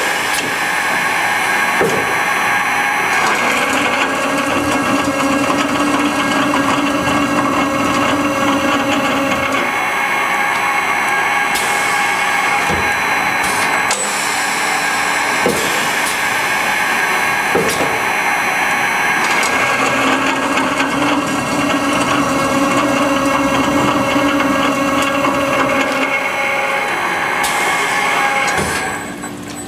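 Scotchman CPL 315 HFA automatic cold saw running through its automatic cycle, cutting 9/16-inch threaded rod: a lower hum comes in for about six seconds twice, about fifteen seconds apart, with sharp clunks between the cuts. The machine goes quieter just before the end.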